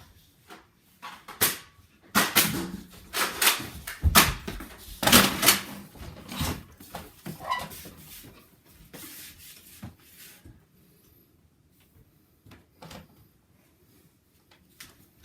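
A string of knocks, clunks and clatter, thickest in the first half and thinning out to near quiet after about ten seconds.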